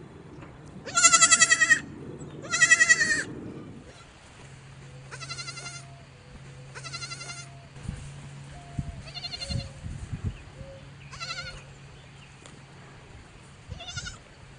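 Goats bleating: seven quavering, high-pitched bleats. The first two are loud and come close together; the five after them are quieter and spaced a couple of seconds apart.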